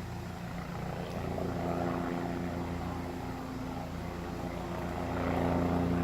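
Low-flying helicopter overhead, a steady drone of rotor and engine that grows louder as it heads back towards the listener.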